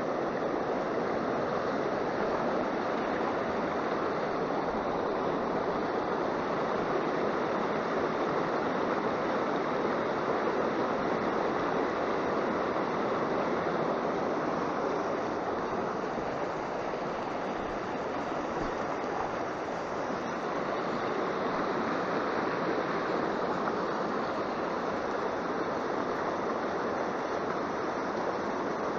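Fast-flowing mountain river rushing over rocks and shallow rapids: a steady, even roar of water.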